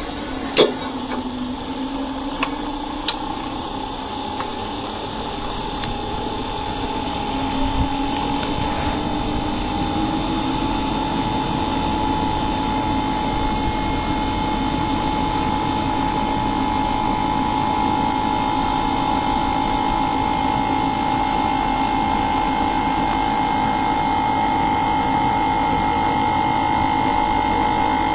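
Inverter air conditioner running up to speed: a steady mechanical hum whose pitch rises slowly over the first ten seconds or so and then holds, getting slightly louder, with a few sharp clicks in the first few seconds.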